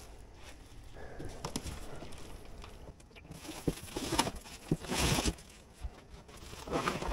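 Cardboard shipping box and foam wrapping rustling and scraping, with a few light knocks, as a foam-wrapped e-bike is handled and shifted in its box. The loudest rustle comes about five seconds in.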